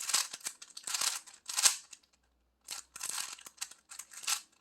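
3x3 Rubik's cube being twisted quickly to scramble it: rapid plastic clacking and rasping turns, about two a second, with a brief pause about two seconds in.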